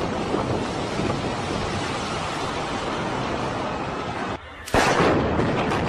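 A brick multi-storey building collapsing in an explosive demolition: a steady dense rumble of falling masonry and debris. Just over four seconds in the sound drops out for a moment, then a sudden loud bang sets off more loud noise.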